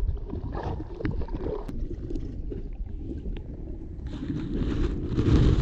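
Muffled rumbling and sloshing of water heard through a submerged camera, with scattered small clicks; it swells into a louder rush of water from about four seconds in.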